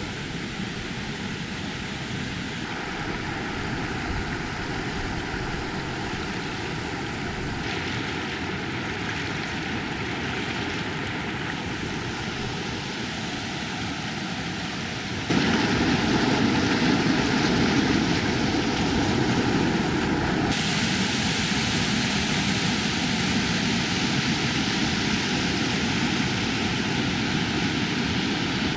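Steady rush of a waterfall's falling water. It gets abruptly louder about halfway through and changes in tone at a few sudden breaks, as from several shots joined together.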